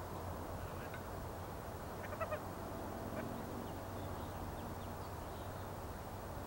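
A bird calling, a quick pair of short notes about two seconds in and a few fainter ones later, over a steady low background rumble.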